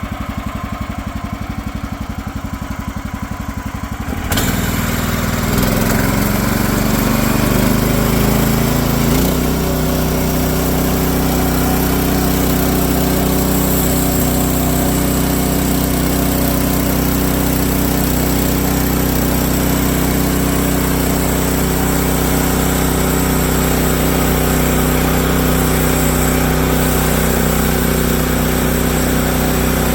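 Bandsaw sawmill's gasoline engine idling, then throttled up about four seconds in as the band blade spins up. After a few seconds of shifting pitch it settles into a steady high-speed run, with the blade hissing as it saws through the log.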